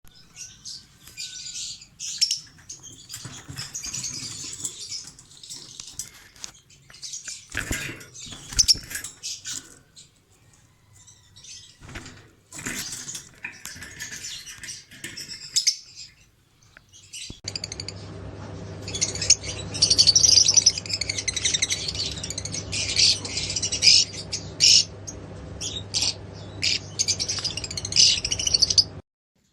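Small parrots chirping and chattering in rapid high calls. A steady low hum comes in beneath them a little past halfway.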